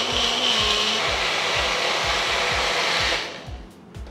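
Small electric mixer-grinder jar running steadily as it grinds grated coconut and water into chutney, then switched off about three seconds in. A steady music beat thumps underneath.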